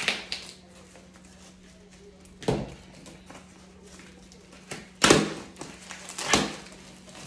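A knife slitting packing tape and a cardboard box being torn open, with short scraping, tearing rustles about two and a half, five and six and a half seconds in.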